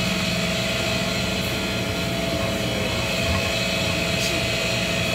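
Steady mechanical hum and whir of a running machine, even in level, with a few steady tones over it.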